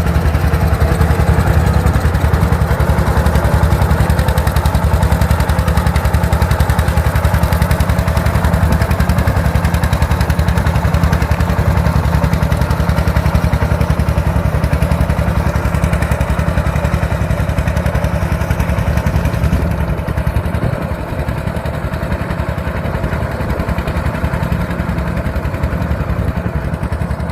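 A heavy vehicle engine running steadily with a rapid low chugging, dropping a little in loudness about three-quarters of the way through.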